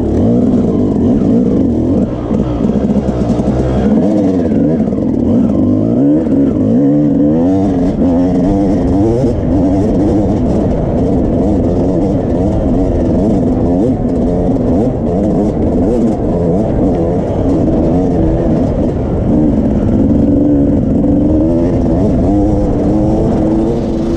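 Yamaha YZ250 two-stroke dirt bike engine heard from on the bike, revving up and down over and over as the throttle is worked across rough ground.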